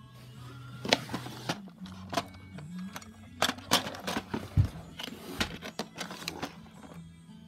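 Clear plastic storage drawers being pulled out and pushed back, with a series of sharp plastic knocks and clatters, over quiet background music.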